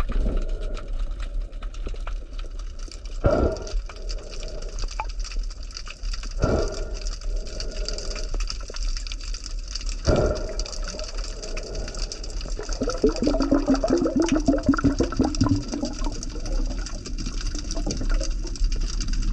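Underwater sound picked up by a camera in its waterproof housing: a muffled steady rush and hum, with three dull knocks a few seconds apart and a rapid crackling run of clicks between about 13 and 16 seconds in.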